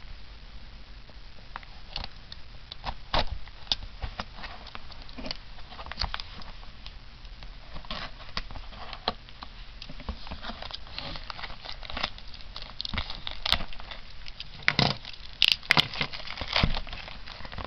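Plastic shrink wrap being worked at and peeled off a cardboard booster box: scattered clicks and crinkling, growing busier about halfway through, with a cluster of louder crackles near the end.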